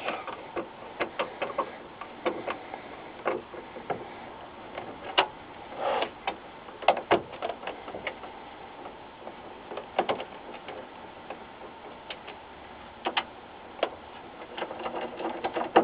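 Irregular light clicks and ticks of a hand screwdriver backing screws out of a TV's back cover, with the small screws being picked out by hand.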